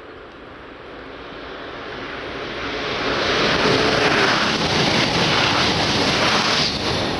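Double-deck TGV Duplex high-speed train passing at line speed: a rushing noise that builds as it approaches, is loudest as it goes by, and drops off sharply near the end as the last car passes.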